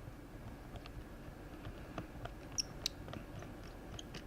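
Faint, scattered small clicks and ticks of a screwdriver working the small screws that hold a laptop motherboard.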